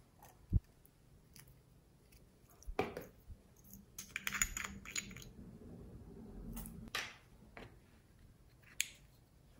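Small plastic pots of slime add-ins being handled: scattered clicks and taps of plastic, with a short run of crackly clicking about four seconds in as a small round lid is opened.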